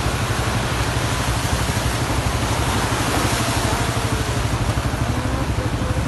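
A vehicle engine running with a steady, pulsing low rumble under a continuous rushing hiss, as a pickup truck drives through floodwater.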